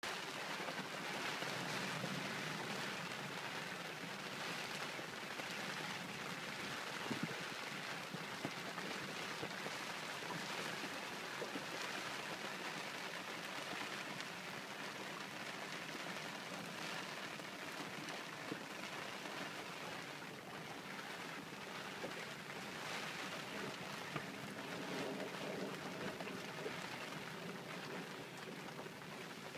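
Steady rain falling on the deck of a small sailboat and on the water around it.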